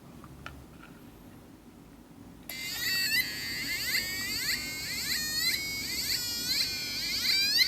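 Homemade electronic sound-effects circuit sounding through a small speaker: after a couple of faint clicks, it switches on suddenly about two and a half seconds in with a buzzy synthetic tone that swoops up and down in pitch over and over, about once a second.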